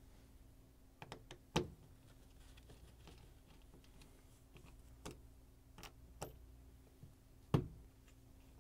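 Scattered small clicks and knocks from a Torx driver, a screw and a dishrack rail axle and roller being worked loose on a stainless steel dishwasher tub, with two louder knocks, one about a second and a half in and one near the end.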